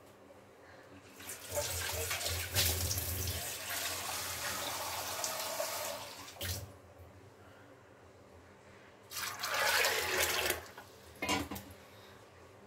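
Water running for about five seconds, then again for a second or two about nine seconds in.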